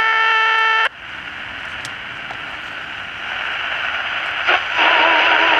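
A steady whine with a string of overtones set off by the little component tester held against a Zenith Royal 500D transistor radio; it cuts off suddenly about a second in. Then comes a hiss of AM radio static that grows louder, with a click and a station's broadcast coming through near the end.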